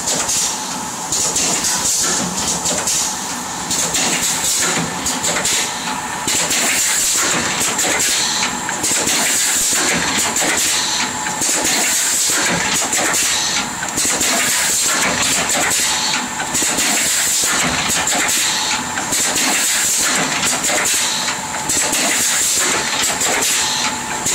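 GGS 110A plastic ampoule filling and sealing machine running: a steady mechanical noise under a loud, high hiss, dipping briefly every few seconds.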